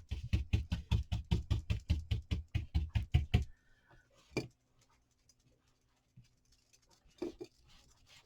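Stiff, worn chip brush scrubbing quickly back and forth, dry-brushing white chalk paint onto a painted piece to distress it, about six strokes a second. The brushing stops about three and a half seconds in, followed by a single knock and faint handling.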